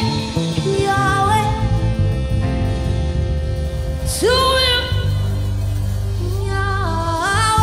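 Live gospel worship music: a woman sings long, sliding phrases with vibrato into a microphone over sustained instrumental backing, with a strong upward swoop about four seconds in and a rising phrase near the end.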